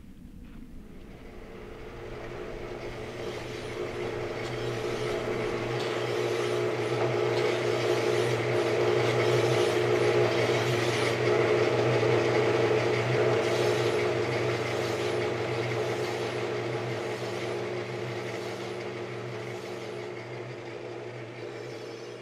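A vehicle's engine running with a steady, unchanging note, growing louder toward the middle and fading away toward the end.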